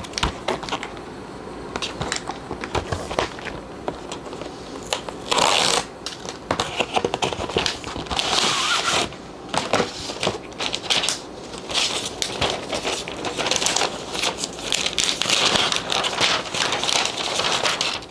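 Cardboard packaging and paper wrapping being handled and unwrapped: paper crinkling and rustling in several spells, with cardboard tapping and knocking in between.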